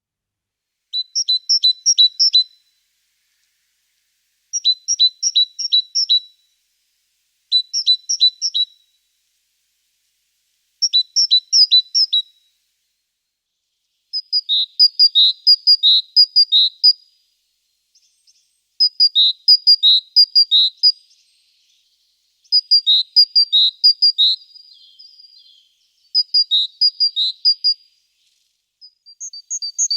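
Small songbird singing short phrases of rapid, high repeated notes, one phrase every two to four seconds; the phrases in the second half are longer and change pattern.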